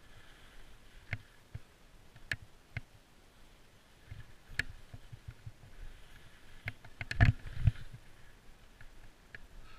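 Skis and poles running over snow through tree glades, heard as irregular clicks and knocks over a faint hiss. The heaviest thumps come about seven seconds in.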